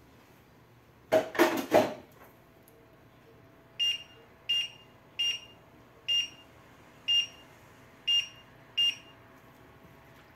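A brief clatter about a second in, then seven short high beeps from an induction hob's touch controls, a little under a second apart, as the power is stepped up to bring the stock back to the boil.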